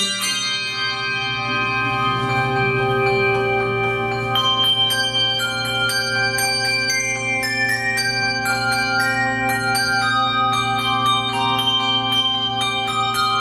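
Handbell choir playing a piece: many tuned handbells ringing together, holding long chords for the first few seconds, then a quicker run of struck notes from about four seconds in.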